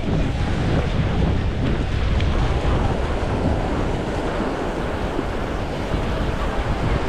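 Waves breaking and washing on a beach, with wind buffeting the microphone as a steady low rumble.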